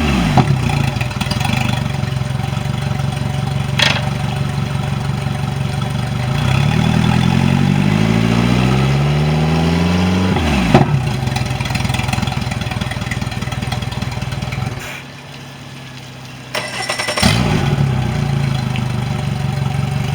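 Mercury 90 hp four-stroke outboard engine running: it drops back to idle, revs up steadily over a few seconds, then falls back to idle. Near the end it cuts out for about a second and a half, then starts again and idles.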